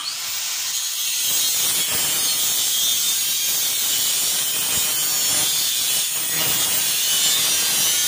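Electric angle grinder with a cut-off disc cutting through a thin metal strip: a loud, steady, high-pitched grinding.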